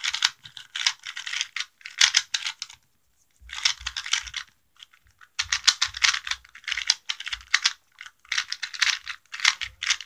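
A brand-new Moyu Weipo 2x2 speed cube being turned quickly by hand on its first turns out of the box: fast runs of plastic clicking and clacking from the layers, in several bursts with short pauses between them.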